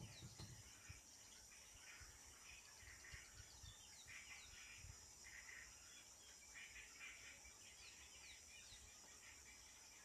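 Faint bush ambience: a steady high-pitched insect drone with scattered bird chirps and calls, and a few soft low thumps near the start.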